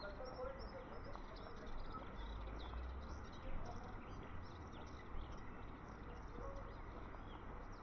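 Many small birds chirping in quick, scattered calls.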